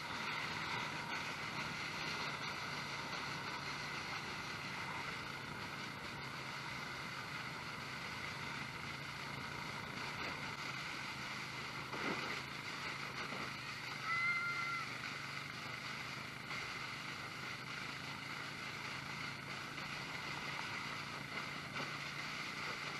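Engine running at a steady speed under a rushing noise of wind or water. A soft knock comes about 12 seconds in, and a brief high squeak, the loudest sound, about 14 seconds in.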